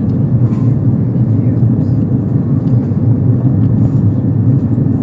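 Steady cabin noise of an Airbus A330-300 in cruise flight, heard from a window seat: an even, deep rush of engine and airflow noise, recorded loud and distorted.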